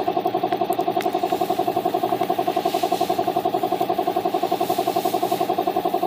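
A motor running steadily, a pitched hum with a fast, even throb, with a few light plastic clicks near the start.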